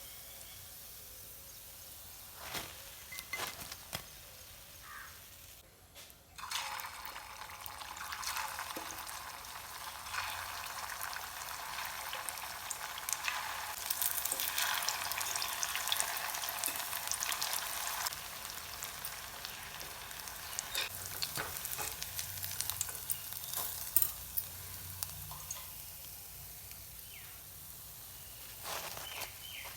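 Aloo tikki (spiced potato patties) frying in hot oil in a pan, a steady sizzle that starts suddenly about six seconds in and eases off over the second half. A few sharp clicks come before the sizzle starts.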